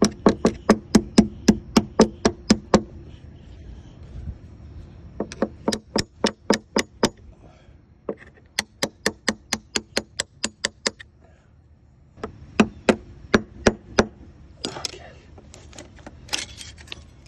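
Small hammer tapping rapidly on metal, about five light strikes a second in four runs with short pauses between: driving quarters used as wedges in behind a bedded transducer's flange to pry it off the hull against 5200 adhesive sealant.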